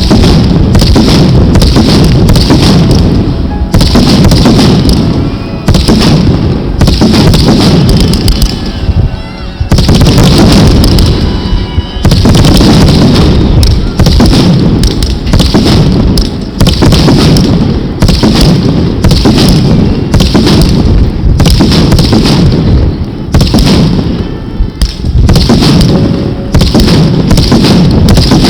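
Fireworks going off in a dense, near-continuous barrage of booms and bangs, loud enough to overload the microphone, with short lulls every few seconds.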